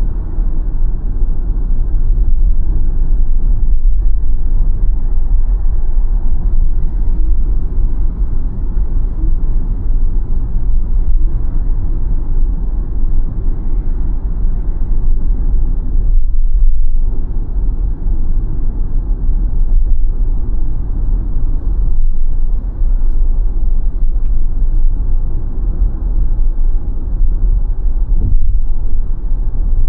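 Steady low road and tyre rumble of a BYD Sealion 7 electric SUV on the move, with no engine note; the rumble drops off briefly about sixteen seconds in.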